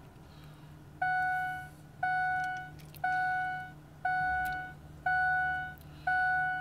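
Seatbelt warning chime of a 2002 Ford F-250 Super Duty with the key switched on and the diesel not yet cranked, waiting on its glow plugs: six evenly spaced beeps, about one a second, each fading away. A faint steady low hum runs underneath.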